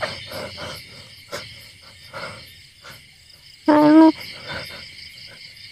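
Crickets and other insects chirping steadily, with one short, loud meow-like call a little past halfway.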